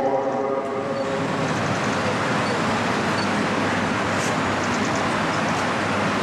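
Steady rushing background noise in a large, crowded prayer hall. A man's long chanted call, sung in held notes, ends in the first second.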